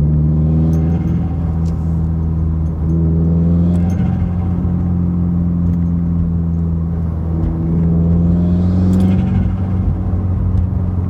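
Turbocharged flat-four engine of a 2017 Subaru WRX with an aftermarket cat-back exhaust, heard from inside the cabin as a steady drone. Its pitch climbs in three gentle pulls under light acceleration in third gear.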